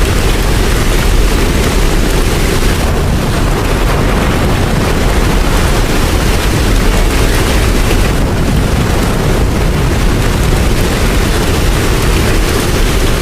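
Steady heavy rain, a dense, even hiss with a deep rumble underneath.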